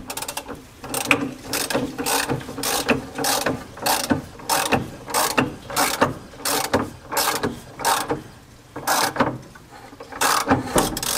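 Ratchet wrench clicking in repeated strokes on the crankshaft pulley nut as a 1955 Porsche 356's engine is turned over slowly by hand. The clicking pauses briefly twice near the end.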